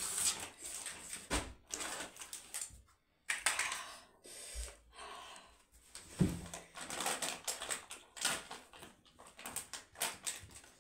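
Close-up eating sounds of a person chewing spicy noodles and roast chicken: a run of quick wet clicks and smacks from the mouth.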